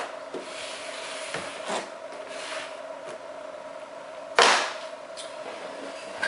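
Cardboard boxes being handled on a desk: rubbing and light knocks, with one louder brief scrape or thump about four and a half seconds in. A faint steady hum runs underneath.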